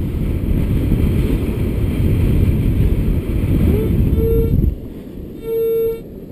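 Strong wind buffeting the microphone, dropping away about four and a half seconds in. Near the end a Minelab Sovereign GT metal detector gives a short beep, then a longer one of the same pitch: its signal tone for a buried coin.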